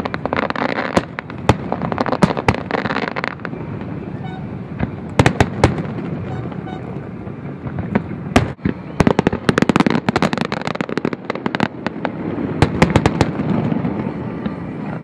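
Aerial fireworks display going off: repeated sharp bangs and crackling, in thick clusters about five seconds in and again from about nine to thirteen seconds.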